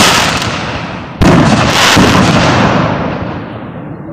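Aerial fireworks bursting. The din of one burst is fading off when a second loud burst hits suddenly about a second in, then slowly dies away.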